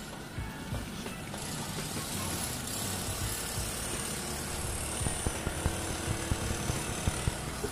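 Battery sprayer's small electric diaphragm pump running with a steady motor buzz and hiss, the hiss coming up about a second and a half in, with a few knocks over it.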